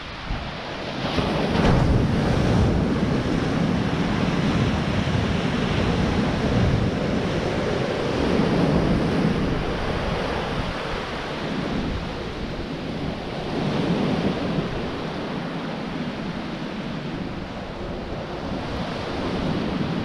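Sea waves breaking and washing onto a stony shore, swelling louder every few seconds, with wind buffeting the microphone.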